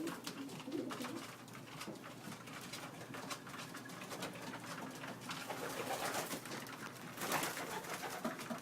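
Racing pigeons cooing in an enclosed loft, with many small clicks and taps throughout and a short louder burst of noise about seven seconds in.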